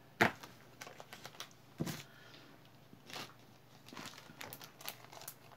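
Tabletop handling noises: a sharp click just after the start and another near two seconds, then soft rustling and light scattered taps as things are moved about by hand.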